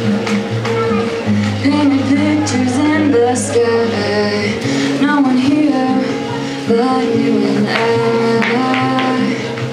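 A woman singing while accompanying herself on an acoustic guitar, her voice gliding over steadily held chords.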